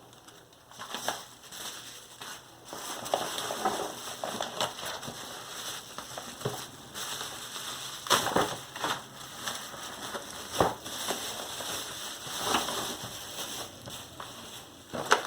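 Plastic packaging crinkling and rustling as parts are unwrapped and handled, with sharper crackles that are loudest about eight seconds in and near the end.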